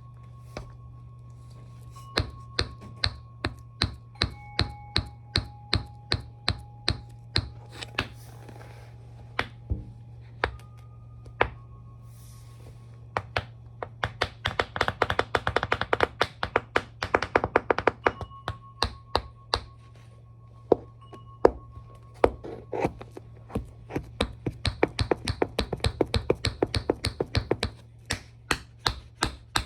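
Metal taps of tap shoes striking a hard floor: single clicks about two a second at first, then rapid flurries of taps partway through and again near the end. A steady low hum lies underneath.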